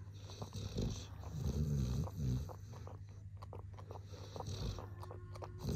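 A sleeping Weimaraner snoring with its tongue hanging out: slow, low breaths, louder about one and a half seconds in and again at the end.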